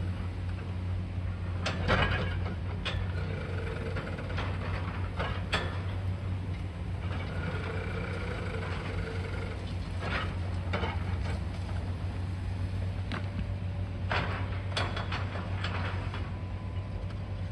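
High-reach demolition excavator working: its engine runs steadily underneath while the boom moves, with a faint whine now and then and scattered sharp knocks and cracks of the demolition work, the loudest about two seconds in.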